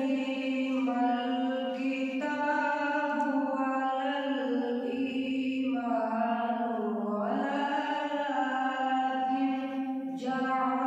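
A young man's solo voice chanting Quran recitation through a microphone in the melodic tajweed style, drawing words out into long held notes with slow ornamented turns of pitch and a rising glide about seven seconds in.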